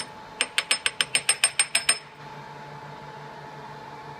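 Milled low-carbon steel part being handled among steel chips: a single sharp metallic click, then a quick run of about a dozen ringing clicks, about seven a second, stopping about two seconds in. A steady low hum carries on underneath.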